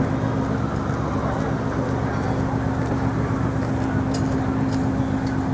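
Steady city street noise: traffic with a constant low engine or machinery hum underneath.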